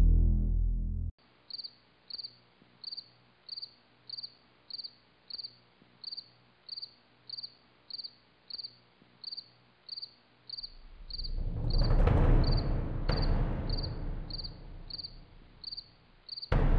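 Crickets chirping in a steady, even rhythm, about one and a half short high chirps a second. From about ten seconds in, a loud low rushing noise swells up over them, with two sharp clicks.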